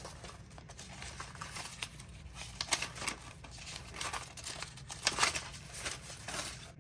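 Paper crinkling and rustling in short, irregular crackles as small paper cut-outs are sorted through by hand.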